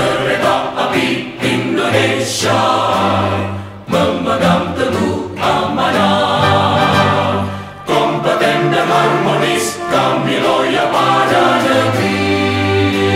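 Choir singing an Indonesian company march anthem, lyrics such as "memegang teguh amanah" and "kami loyal pada negeri", in phrases with short breaks about four and eight seconds in.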